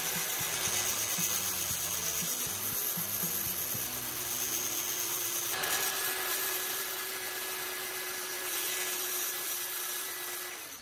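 Cordless angle grinder running, with a cordless drill spinning a spark plug against its disc to grind the metal plug-prong tip to a fine point: a steady grinding hiss over a motor whine. The tone shifts about halfway through, and the sound fades away at the very end.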